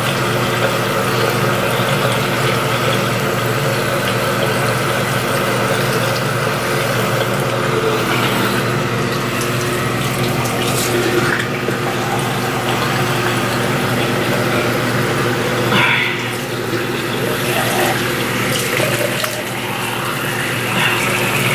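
Bathroom sink tap running steadily.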